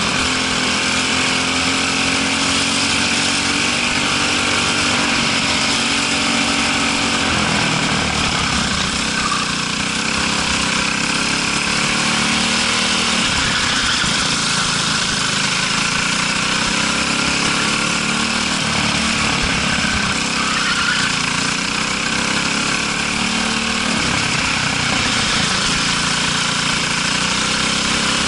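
Briggs & Stratton LO206 single-cylinder four-stroke kart engine heard from on board. Its pitch falls off and climbs again several times as the kart slows for corners and accelerates out, over a steady rush of wind noise.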